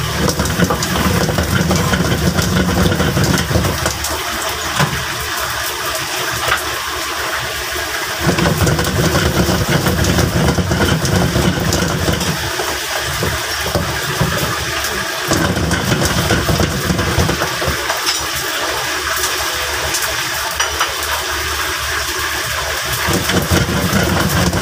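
Gas wok burner running under a wok of chili crab in sauce: a steady hiss with a low rumble that swells and drops away several times.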